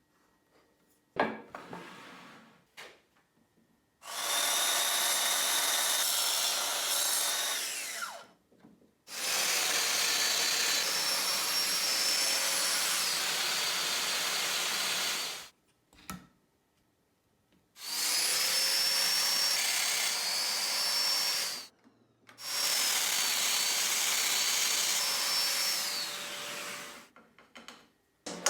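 Electric drill boring into wood in four long runs, its motor whine dipping and recovering as the bit takes load, with a short click near the start.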